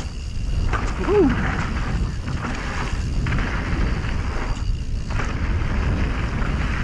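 Wind rushing over the microphone and the rumble of a mountain bike's tyres on a dirt trail during a downhill run, rising and falling in waves. A short whine rises and falls about a second in.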